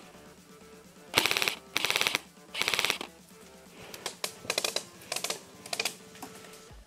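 Airsoft electric rifle (a G&P M7A1) firing three short full-auto bursts of rapid clicking shots in quick succession, about a second in. Several shorter, quieter bursts of airsoft fire follow.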